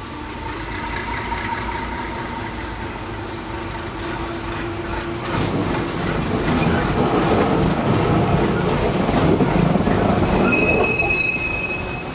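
MaK 240B diesel locomotive running with a steady engine note as it draws near, then its wheels and the freight wagons rumbling and clattering past close by, louder from about halfway. A brief high wheel squeal comes near the end.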